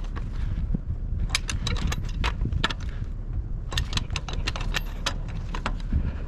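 Clusters of short light metallic clinks and rattles, twice in quick runs, over a steady low rumble.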